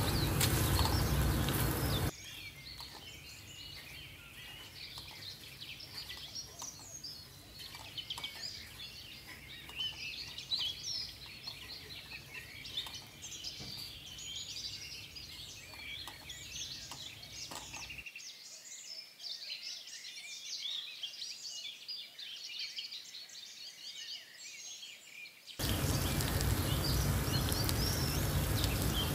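Birds chirping and singing, with many short overlapping calls. The birdsong is set between two stretches of louder, even noise, one at the start and one near the end.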